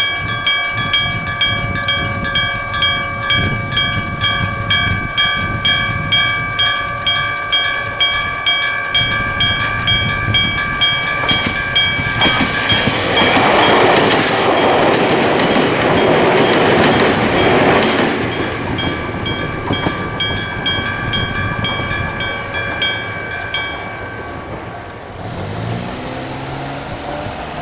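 Electric-bell level-crossing alarm: a hammer strikes a bell mounted on the crossing pole, giving a clanging 'kan, kan, kan' at about one and a half strikes a second. A train passes over the crossing for about five seconds near the middle and is the loudest sound. The bell stops about three-quarters of the way in, and a low rising hum follows.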